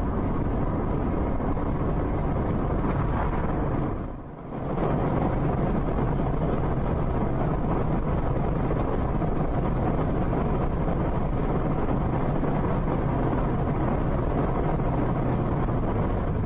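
Steady road and engine noise of a moving car, heard from inside the cabin through a dashcam microphone. The noise dips briefly about four seconds in.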